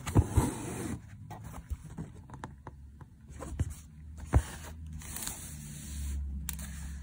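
Embroidery thread being drawn through fabric stretched in a wooden hoop: a rustling scrape in several pulls, with a few sharp clicks and knocks from handling the hoop and needle.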